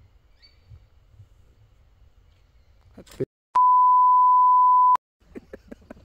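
A steady single-pitch censor bleep lasting about a second and a half, switching on and off abruptly with a moment of dead silence on either side. Faint clicks follow it near the end.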